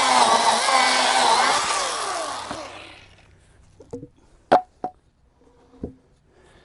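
Milwaukee M18 cordless chainsaw running and cutting wood, its motor pitch wavering under load, then winding down and stopping two to three seconds in. A few sharp knocks and clicks follow.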